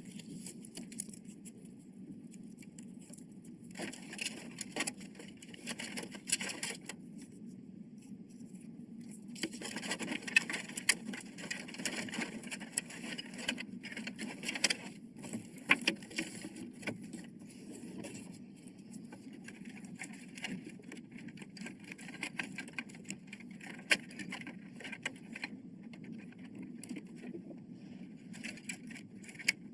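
Small clicks, taps and scraping of computer parts and tools being handled during assembly, coming in stretches over a steady low hum, with a few sharper ticks.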